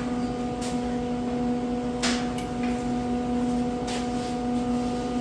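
A steady electrical hum, with three short clicks or knocks of metal being handled.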